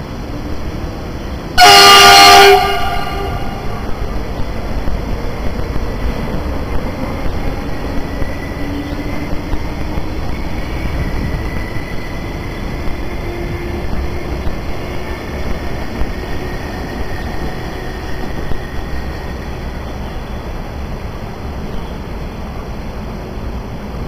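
Siemens ER20 diesel locomotive's horn giving one very loud blast of about a second, several tones sounding together, about two seconds in. After it, a passing passenger train rumbles steadily.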